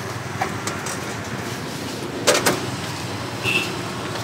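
Busy street background with a steady traffic hum, broken by two sharp clicks a moment apart about halfway through and a brief high beep near the end.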